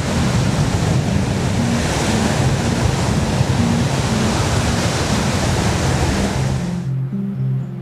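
Ocean surf breaking, a loud steady rush of white water, with background music underneath; the surf noise cuts off suddenly near the end, leaving the music.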